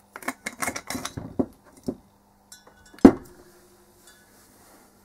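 Small hard objects clicking and clinking on a workbench as they are handled and set down, with one sharp knock about three seconds in that rings briefly.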